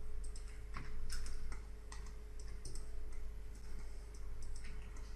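Irregular light clicks of a computer mouse and keyboard, over a faint steady electrical hum.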